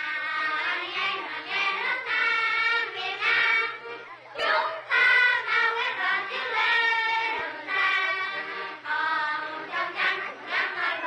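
A group of children singing together, high voices carrying a melody with brief pauses between phrases; a short click breaks in about four and a half seconds in.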